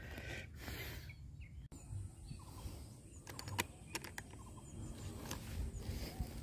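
Low outdoor ambience of wind with faint, short, high bird chirps scattered through, and a few sharp clicks in the middle.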